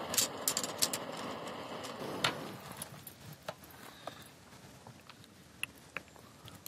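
Metal clinks and rattles of camp cooking gear being handled and pulled apart, over a steady rushing hiss that fades out about two and a half seconds in.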